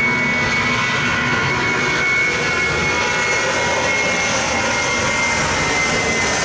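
Airbus A320 jet engines at takeoff thrust as the airliner accelerates down a wet runway: a steady, loud rush with a high fan whine that drifts slightly lower in pitch as the aircraft passes.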